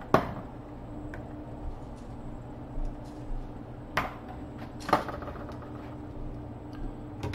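Sharp clicks and knocks of kitchen utensils being handled: the loudest just after the start, then two more about four and five seconds in, over a steady low hum.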